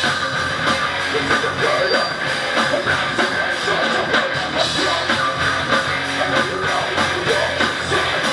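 Heavy metal band playing live: electric guitars, bass guitar and drum kit, loud and steady.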